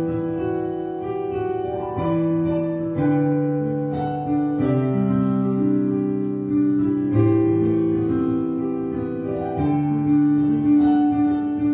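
Slow instrumental piano music: sustained chords, with the notes changing every second or two.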